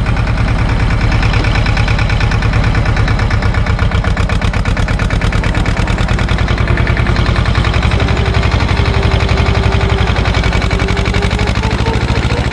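Same tractor's diesel engine running steadily while the tractor drives along, its firing pulses even and close to the microphone.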